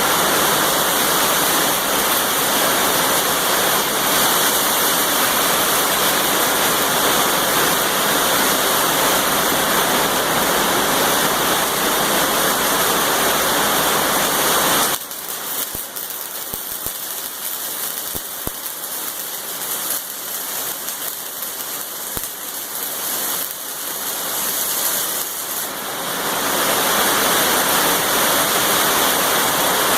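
Steady rushing hiss of heavy rain. About halfway through it drops away abruptly to a quieter stretch with a few clicks, then builds back a few seconds later.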